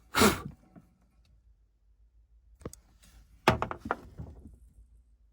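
Things being handled: a thump right at the start, a single click a bit past halfway, then a quick run of knocks and clicks.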